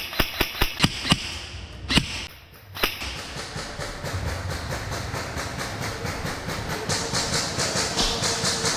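Airsoft guns firing: a quick string of sharp snaps in the first second, then single shots about two and three seconds in. After that comes a steady hiss with fast, faint, even ticking.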